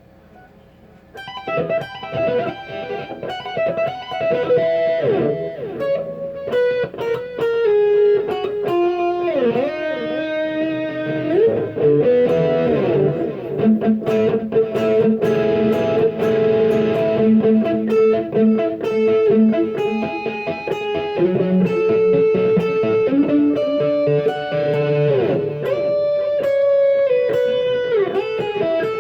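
Electric guitar played through a Zoom G1x multi-effects pedal: a lead passage of quick single notes with string bends and some held notes, starting about a second in.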